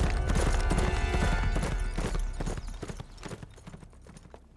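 A horse galloping, its rapid hoofbeats fading away over the second half as it rides off.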